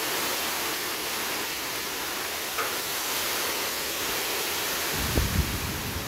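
Heavy rain pouring steadily in a windstorm, a dense hiss, with gusts of wind buffeting the microphone in low rumbles about five seconds in.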